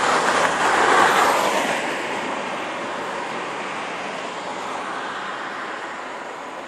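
A small hatchback car passes close by: a rush of tyre and road noise that swells to its loudest about a second in, then fades away into steady, lighter traffic noise from cars in the far lanes.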